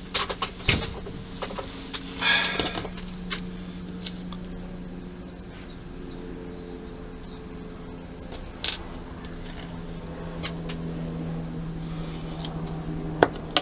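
Scattered small clicks and taps as plastic model parts are handled and fitted, over a steady low hum, with a few short high chirps.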